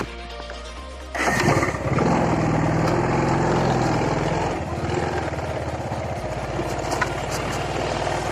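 Motorcycle engine comes in suddenly and loudly about a second in, then runs on with a fast, even firing pulse and an uneven pitch, easing slightly about halfway through. Background music plays throughout.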